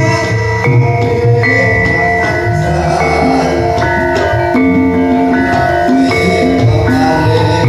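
Javanese bronze gamelan ensemble playing a gending: bronze metallophones ring out a steady run of held notes, two or three a second, over low drum strokes.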